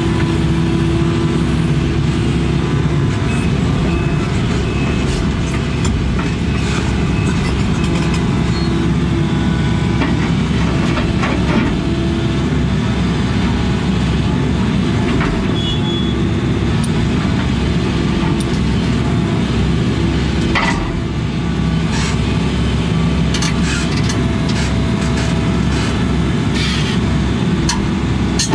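Heavy diesel engine running steadily, with scattered rattles and clanks over it.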